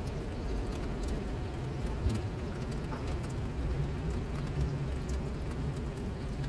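Rain falling steadily onto a flooded paved surface, drops pattering and splashing into standing water with many scattered sharp ticks, over a steady low rumble.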